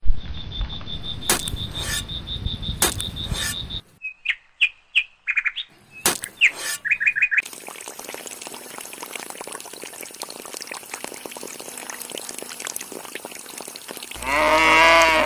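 Water gushing from the outlet pipe of a small DC-motor toy water pump and splashing into a soil channel, at first with a thin steady high whine and a few clicks. From about 4 to 7.5 seconds the water drops out and short bird chirps come through, then the water runs on. Near the end comes a loud mooing call that arches in pitch.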